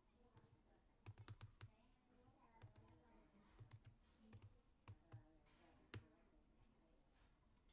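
Computer keyboard keys clicking faintly: a quick run of keystrokes about a second in, then scattered single clicks over the next few seconds.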